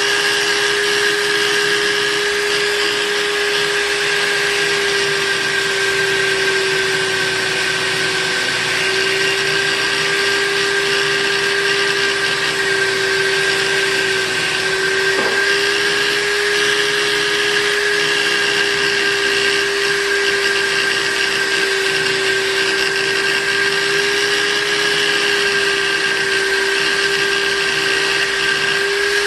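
Electric buffing machine running steadily as a spoon knife is buffed on its wheel: an even motor hum with a higher whine over a rushing hiss.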